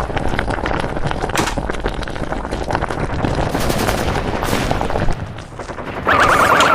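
A dense, rapid rattle of clicks and bangs, a foley sound effect resembling gunfire or clattering machinery. It thins out briefly about five seconds in, then a loud wavering, alarm-like tone cuts in near the end.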